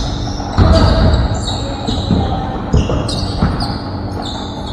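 Basketball game on a court: a basketball bouncing on the floor in repeated thuds, with short high-pitched squeaks of sneakers on the court.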